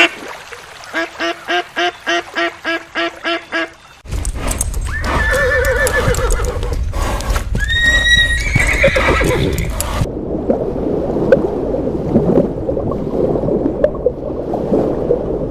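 Horse neighing: two long whinnies that waver in pitch, about five and eight seconds in, over a low rumble, followed by a noisy stretch with scattered knocks that may be hooves. Before the horse, a run of about ten short, evenly spaced calls from another farm animal, three or so a second.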